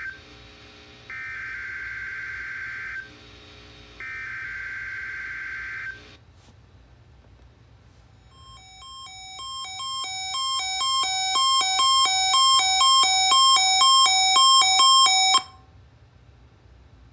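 NOAA Weather Radio SAME data header: repeated bursts of warbling digital tones, each a couple of seconds long with a pause between, as a weekly test is coded. After a click, a weather alert radio's alarm beeps quickly and grows steadily louder, then cuts off suddenly.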